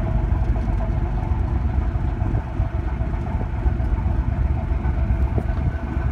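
Winton marine diesel engine of the classic yacht Portola running steadily, heard near its exhaust stack as a low, even engine sound.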